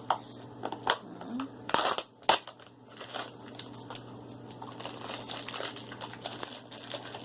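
Plastic toy packaging being opened and handled: several sharp snaps and knocks in the first couple of seconds, then a steady run of crinkling and small clicks.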